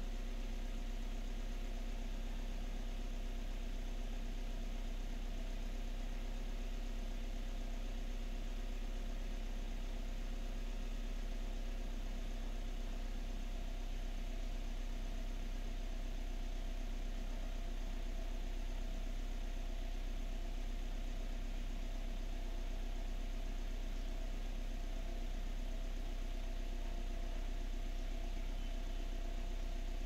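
Suzuki Swift's 1.3-litre four-cylinder engine idling steadily, heard from inside the cabin. It is idling a little high, over 900 rpm, and is not yet fully warm. The car has a brake-booster vacuum leak that makes it run lean at idle.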